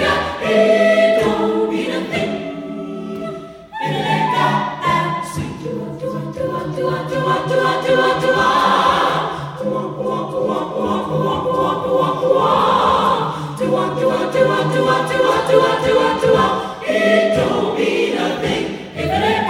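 A cappella jazz vocal ensemble singing swing in close harmony into hand-held microphones, several voices holding chords together, with short breaks about four seconds in and again near the end.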